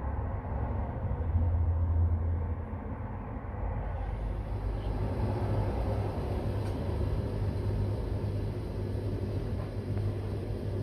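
Road traffic: a steady stream of cars going past, a continuous low rumble that swells and eases, heavier than usual because the motorway is probably closed.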